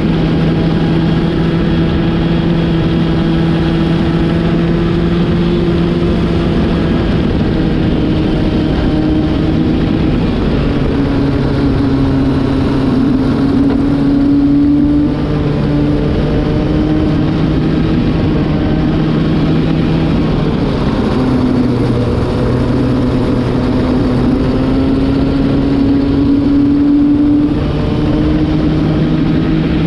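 Racing kart engine heard on board at speed, a newly fitted engine being run in. Its note holds steady, falls twice as it slows and climbs back as it picks up again.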